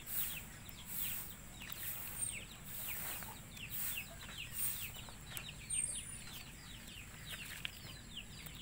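Faint chicken calls: many short, high, falling chirps throughout.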